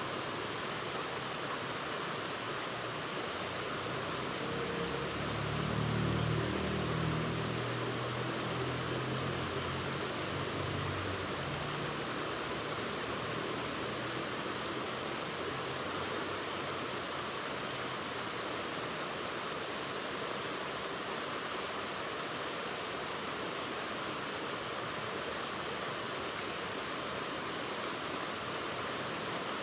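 Waterfall rushing steadily. A low engine drone swells and fades underneath it, starting about five seconds in and dying away a few seconds later.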